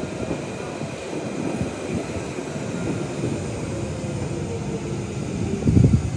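A train running past on the line, a steady rumble and rush with a faint whine that falls slightly in pitch; the low rumble swells louder near the end.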